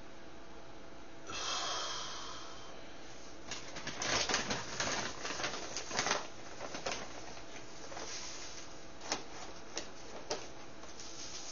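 Close handling noises: a short hiss, then a busy run of sharp clicks and rustles for a few seconds, then three single clicks.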